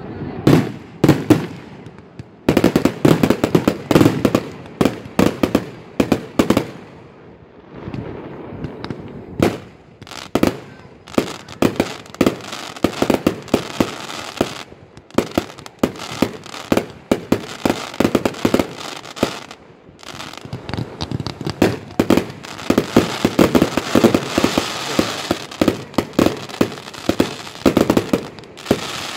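Aerial fireworks display: a continuous run of sharp shell bursts, several bangs a second, with dense crackling about three seconds in and again in the last third. The bursts thin out for a few seconds near the middle.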